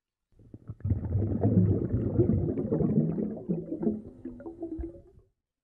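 Transition sound effect under a section title card: a dense, low sound that swells in within the first second, carries a few stepped tones near the end and fades out about five seconds in.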